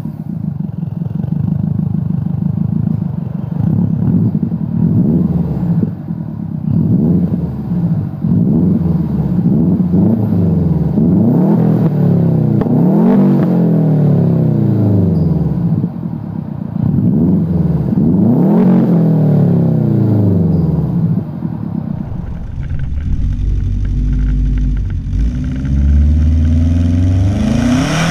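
Turbocharged 2.5-litre flat-four of a 2004 Subaru Forester XT, fitted with an Invidia G200 exhaust and a catted downpipe, revved repeatedly while parked; each rev rises and falls, and two reach higher. About 22 seconds in it gives way to a deeper, steadier exhaust note from a 2005 Forester XT with an Ultrex turbo-back exhaust.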